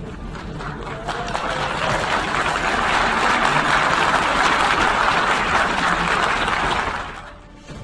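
Delegates applauding in a large assembly hall, greeting the announced result of a vote. The clapping swells from about a second in and dies away near the end.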